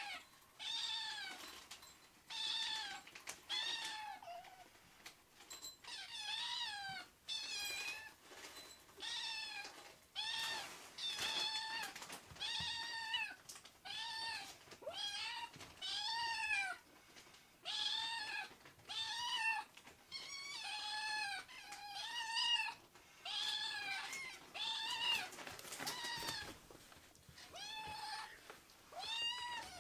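Two kittens meowing over and over, short mews about once a second and sometimes overlapping, each rising and falling in pitch: a meowing chorus begging for food before feeding.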